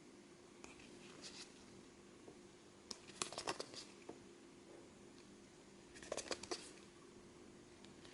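Faint handling noises: four short bursts of rapid clicks and rustles, over a steady low hum.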